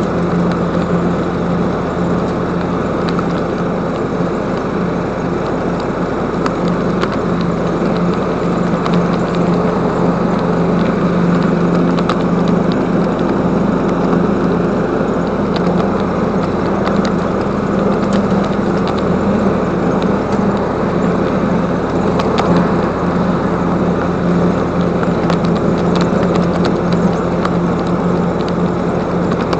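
An engine running steadily at an unchanging pitch, with small scattered clicks over it.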